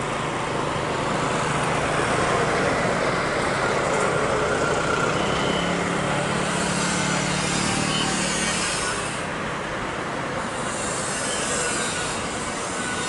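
Boeing 777-200's two jet engines running at low taxi thrust: a steady broad rush with a low hum that grows stronger midway, and a faint high whine.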